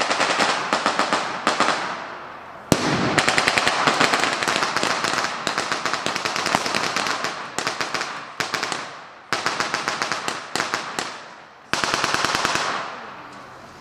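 Long bursts of rapid automatic gunfire from blank-firing weapons, the longest running about six seconds. Each burst stops abruptly and leaves an echoing tail.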